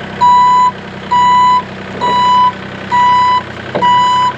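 A reversing machine's backup alarm beeping five times, an even high tone about once a second, over the steady hum of its engine running.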